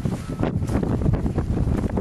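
Blizzard wind buffeting the camera's microphone: a loud, gusty rumble that surges up at the very start and stays strong.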